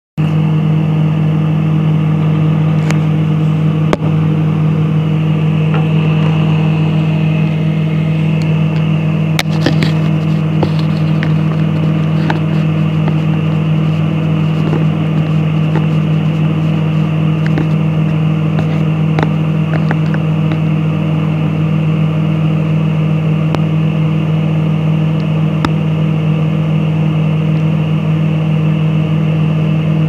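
Microwave oven running at full power with a loud, steady low hum while it heats glass to a glow. Occasional sharp clicks and crackles sound over the hum, most of them about nine to twelve seconds in.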